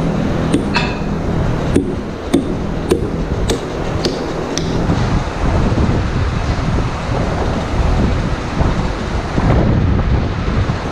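Loud, steady rumble of a running machine, like a barn tractor or loader engine. Over it come a series of sharp knocks and thuds about every half second for the first few seconds, as rubber stall mats are handled and set into place.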